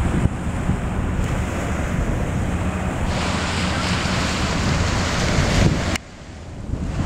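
Wind buffeting the microphone over the wash of waves breaking on the shore, a steady rushing noise with a heavy low rumble. About six seconds in, the sound dips sharply for about a second.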